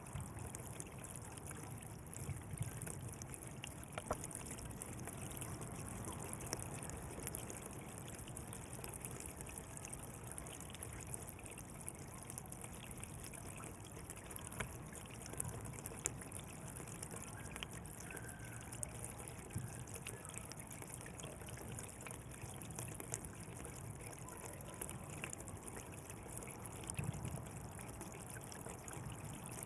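Water running steadily along a channel, a continuous trickling flow with small scattered splashes and drips.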